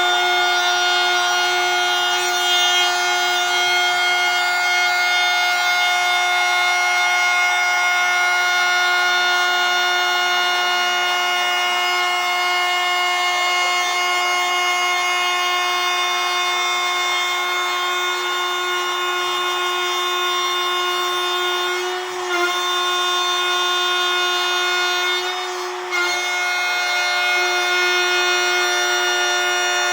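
Electric woodworking power tool motor running at a steady high speed with a constant high-pitched whine, dipping briefly twice near the end.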